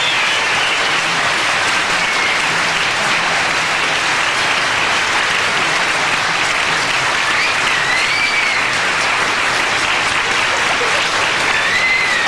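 Audience applauding steadily after a song, with a few short high rising-and-falling cries over the clapping about two-thirds of the way through and again near the end.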